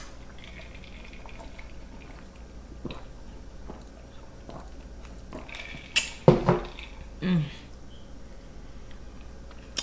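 Mouth sounds of eating and drinking: quiet sipping through a straw and wet lip smacks from licking sauce off fingers, with a few louder smacks about six to seven seconds in.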